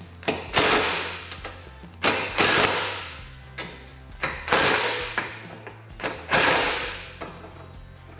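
A cordless driver run in about four short bursts, each under a second, driving screws into a utility-vehicle bed panel. Quiet background music runs underneath.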